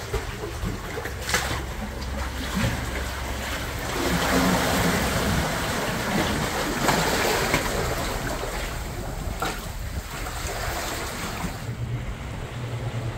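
Seawater washing and splashing over wet jetty rocks, with bare feet splashing through it a few times and wind buffeting the microphone. Near the end a low steady engine drone from a passing fishing boat.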